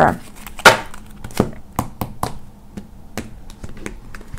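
A deck of tarot cards handled by hand: a short brush of cards being shuffled under a second in, then scattered light taps and clicks as the cards are squared and laid down on the table.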